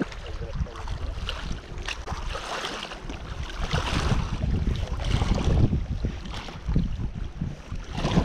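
Gusty wind buffeting an action camera's microphone: a low, uneven rumble that swells and drops throughout.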